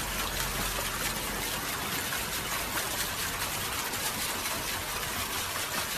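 Steady rushing noise of running water, even and unbroken, with no distinct splashes or pitch.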